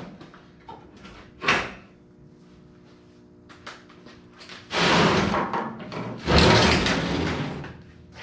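A short MIG tack weld sputters about a second and a half in. Then, about five seconds in, two long scraping grinds follow as the long steel folding side is dragged across the steel flatbed.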